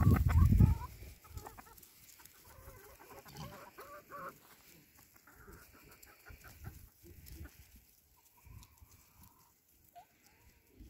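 Chickens clucking softly in short calls while they forage, busiest in the first half. A loud low rumble fills the first second.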